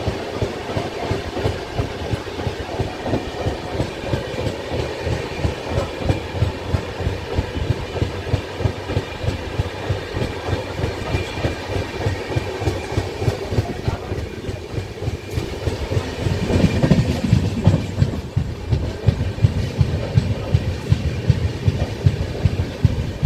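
Gujarat Mail express train's wheels clattering over rail joints in a fast, regular rhythm, heard loud from an open coach doorway. About two-thirds of the way through, the rumble grows louder and heavier.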